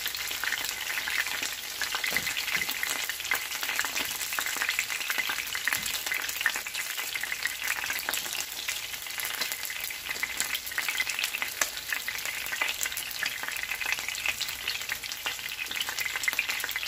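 Breaded pork schnitzels shallow-frying in oil in a pan: a steady sizzle made of many small crackling pops.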